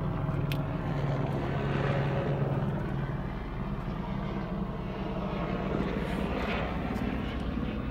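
A steady low mechanical drone, like an engine or aircraft running, with a sharp click about half a second in.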